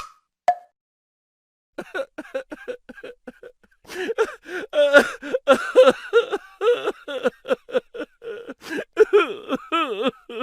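A single wood-block tick, then from about two seconds in a voice laughing in quick, repeated short bursts with bending pitch, getting louder about four seconds in. It is a comedic laughter sound effect.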